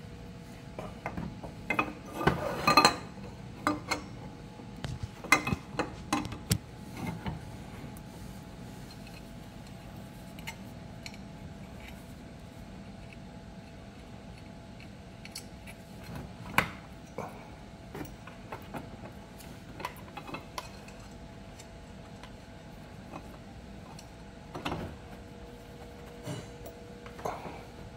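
Scattered metallic clinks and knocks of metal parts and tools being handled around a scooter's engine case. They come thickest in a cluster about two to three seconds in and again around six seconds, then turn sparse, over a faint steady hum.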